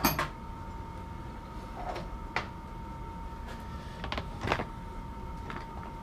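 Scattered short clicks and knocks of metal tools being handled at a lathe, with the loudest at the very start and about four and a half seconds in, over a steady faint high hum.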